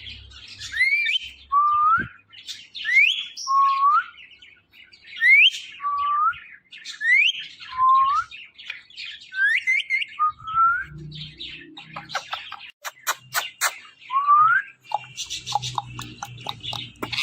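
Parrot mimicking a cat's meow as a whistled two-part call: a high rising note, then a lower rising note, repeated about every two seconds. A quick run of sharp clicks comes near the end.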